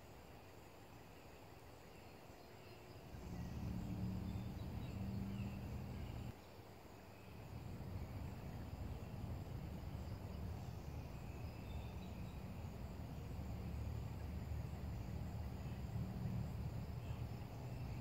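A low, steady hum with a few even pitches starts about three seconds in, cuts out briefly around six seconds, then carries on, over faint high insect chirping.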